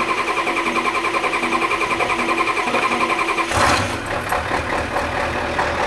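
Starter cranking a 1991 Ford F-250's 7.3-litre IDI V8 diesel with an even, rhythmic churn until the engine catches about three and a half seconds in and runs. It is a slow, hard start after sitting overnight, several seconds of cranking where it used to fire at the first click, which the owner puts down to the waste motor oil in its fuel.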